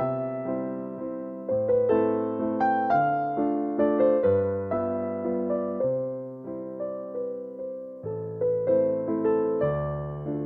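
Background music: soft piano or electric piano playing a slow melody of struck, fading notes.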